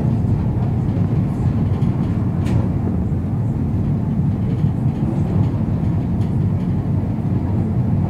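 MAN D0834 four-cylinder inline diesel of a Volkswagen 17-230 OD Euro V bus running steadily, a low, even drone.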